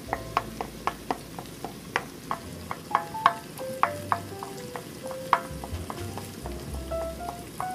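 Wooden spatula stirring and scrambling eggs in a hot nonstick pan, with frequent irregular taps and scrapes against the pan over a light sizzle of frying.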